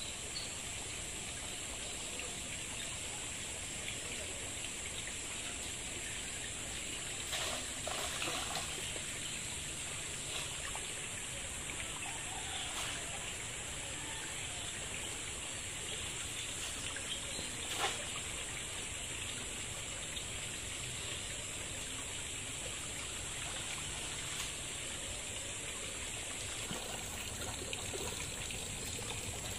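Steady trickling, running water, with a few short splashes from a long-poled net being worked through a shallow muddy pond, the sharpest about 18 seconds in.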